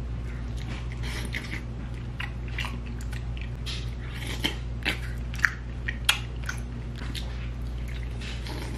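Close-up eating sounds of a man biting into and chewing a sauce-covered piece of chicken: irregular wet smacks and clicks, the sharpest about five and a half and six seconds in, over a steady low hum.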